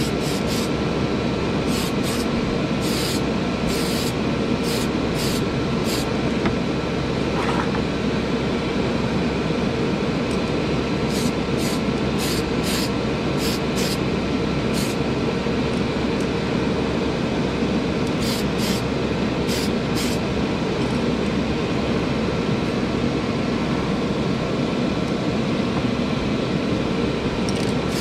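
Paint booth exhaust fan running steadily with a faint constant whine, overlaid by clusters of short spray hisses.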